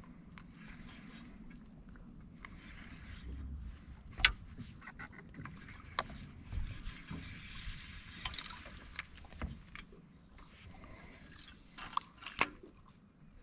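Quiet sounds aboard a fishing boat: a faint low rumble and hiss with scattered sharp knocks and clicks. The loudest knock comes about four seconds in, and two more come close together near the end.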